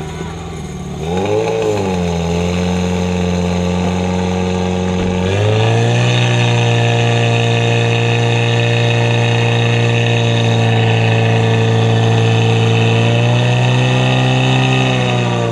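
Portable fire pump engine revving up about a second in with a brief waver, then stepping up to higher, steady revs about five seconds in as it drives water through the attack hoses to the jets. The revs fall back right at the end.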